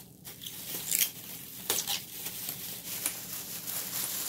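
Plastic packaging wrap being pulled and torn off a boxed part, with irregular crinkling and a few sharp rustles.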